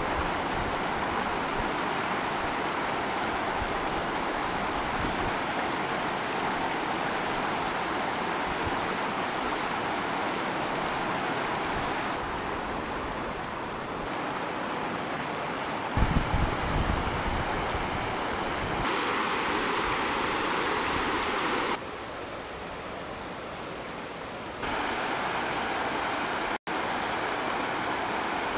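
Shallow river water rushing over a stony bed: a steady rushing noise, its level shifting a little from shot to shot. About halfway through, a brief low rumble buffets the sound.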